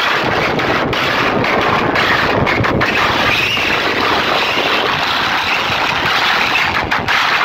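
Stack of horn loudspeakers on a DJ sound rig playing at very high volume, overloading the microphone into a steady, distorted wall of sound with no clear tune or words.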